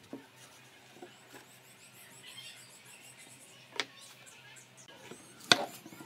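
Quiet hand work on a wooden table frame: a few light taps and two sharp knocks of wood and a plastic spring clamp, the loudest a little after five seconds in. Faint high chirps run in the background.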